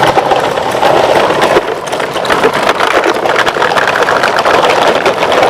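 A plastic toy truck being pushed along, its wheels rolling with a steady rattling rumble.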